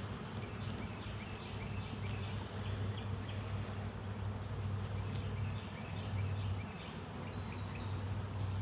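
Honey bees buzzing around an opened hive: a steady, swarming hum that swells and eases slightly.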